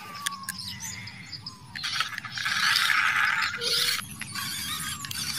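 Battery-powered RC monster truck driving over grass and pushing into crop leaves, its small electric motor and gears running with leaves rustling; the noise swells about two seconds in for about two seconds, then carries on more quietly.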